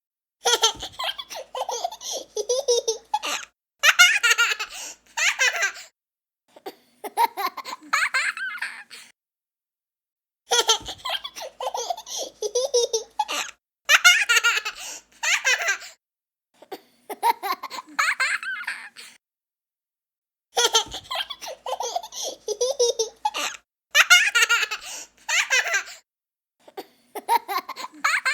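A young child laughing in hearty fits of a second or two, with short silent gaps between them; the same run of laughter repeats about every ten seconds.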